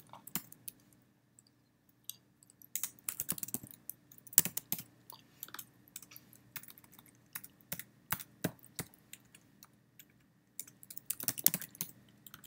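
Typing on a computer keyboard in irregular bursts of quick key clicks, with short pauses between them.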